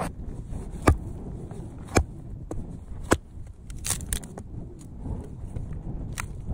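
Three sharp knocks about a second apart, followed by several lighter clicks, over a steady low rumble.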